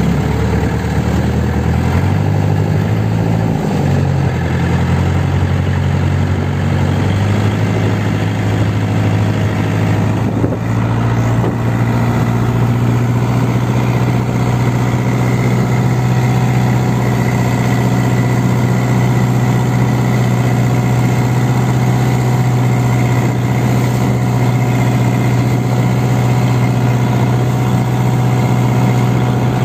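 Small wooden boat's engine running under way. Its note shifts during the first few seconds, then holds steady, over the hiss of water and spray along the hull.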